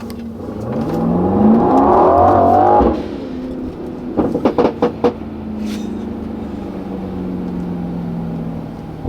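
Brabus 900 GLE 63 Coupe's 4.5-litre twin-turbo V8 accelerating hard, its pitch rising for a couple of seconds until the throttle is lifted suddenly. About a second later comes a quick string of six or so exhaust pops and cracks, and then the engine runs on at a steady cruise.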